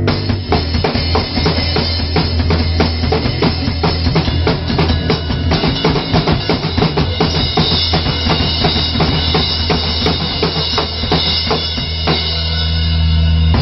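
A band's live demo recording, with a busy drum kit pounding over a steady low bass. About twelve seconds in the drumming stops and a held chord rings on.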